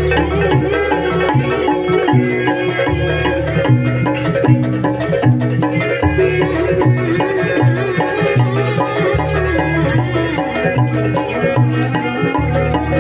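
Live jaranan accompaniment from a Banyuwangi gamelan-style ensemble: wooden xylophones struck in fast repeated patterns over pulsing drum strokes, with a violin carrying a wavering melody.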